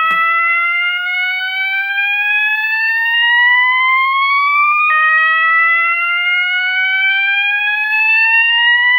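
System Sensor MASS fire alarm sounder on its slow whoop tone, really loud. A long rising sweep drops back to its low pitch about five seconds in and begins rising again.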